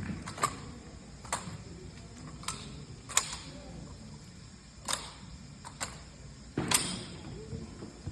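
Drill rifles being slapped, spun and struck during a rifle drill routine: about eight sharp, irregularly spaced knocks over a faint crowd murmur, the loudest about two-thirds of the way through.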